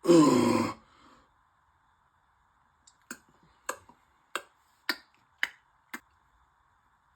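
A person's loud cough at the start. After a pause come about seven sharp clicks, roughly two a second, ending a second before the end.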